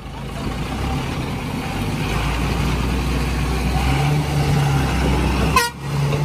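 Heavy multi-axle diesel goods truck running as it drives slowly past close by, getting louder over the first second. A single sharp click about five and a half seconds in, followed by a brief drop.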